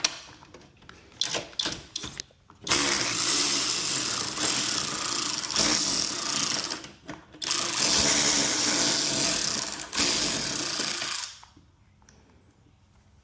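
A power tool running in two long stretches of several seconds each, preceded by a few short bursts. It stops about a second before the end.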